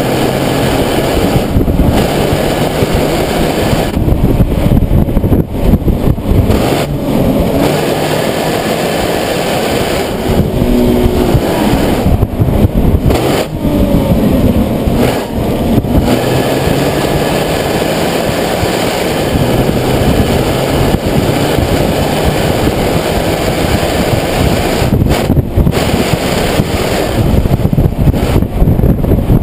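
Nissan 370Z's 3.7-litre V6 running on the move under a dense rush of wind and road noise, its pitch rising and dropping several times.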